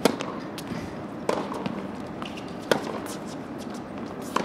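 Tennis serve and rally: four sharp pops of racquets striking the ball about a second and a half apart, the serve at the start the loudest.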